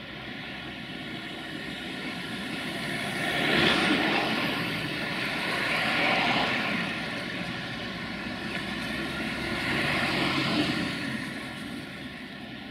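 060-DA (LDE2100) diesel-electric locomotive with a Sulzer engine running under power, its sound swelling and easing three times.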